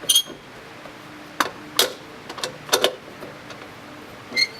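A handful of sharp metallic clinks at irregular intervals, some ringing briefly: a lug wrench working the lug nuts on a car's spare tire as they are snugged up.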